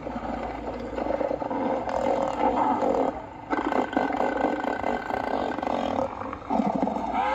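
Southern elephant seals bellowing: loud, pulsed, throaty roars overlapping one another, with a brief lull about three and a half seconds in.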